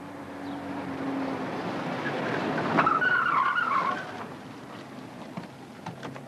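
A car drives up with its engine getting louder, then its tyres squeal for about a second as it turns and brakes to a stop, about three seconds in; afterwards the engine runs lower.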